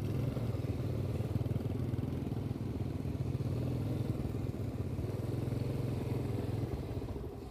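Motorbike engine running steadily at low speed, a continuous low hum.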